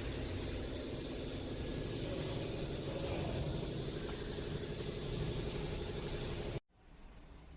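CNC drilling and hardware-insertion machine running with a steady mechanical hum, cutting off suddenly near the end.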